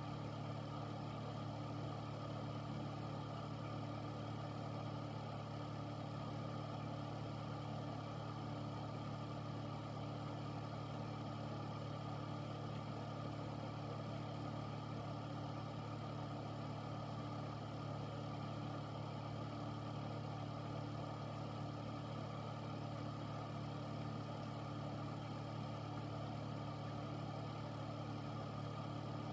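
An air filter unit's fan running steadily: a low motor hum with an even rush of air over it, unchanging throughout.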